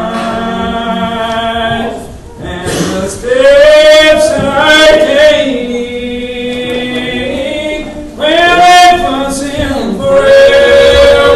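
Unaccompanied hymn singing by a group of voices in the slow Old Regular Baptist style: long, drawn-out notes that slide from pitch to pitch, with short breaths between phrases about two seconds in and again near eight seconds.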